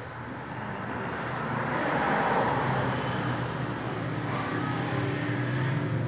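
Passing road traffic: a vehicle's noise swells about two seconds in and then eases, over a steady low hum.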